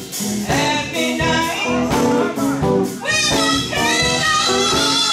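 Live gospel band in the sacred steel style: a steel guitar, keyboard and drums playing, with a woman's voice singing over them. About three seconds in the music swells, fuller and brighter.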